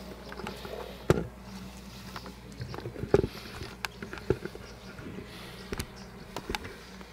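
Scattered light clicks and taps, with two louder dull knocks about one and three seconds in, over a faint steady low hum.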